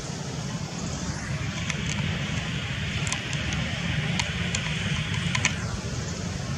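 Steady low outdoor rumble, with the hiss of a vehicle passing by swelling in about a second in and fading away near the end. A few faint high ticks sound over it.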